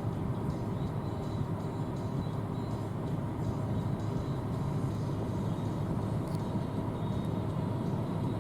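John Deere S680 combine harvester running steadily while harvesting corn, a continuous low machine drone at an even level with faint steady whines above it.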